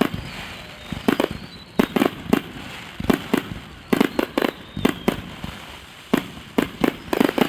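Fireworks going off: a steady run of sharp bangs, often two or three close together, with crackling between them.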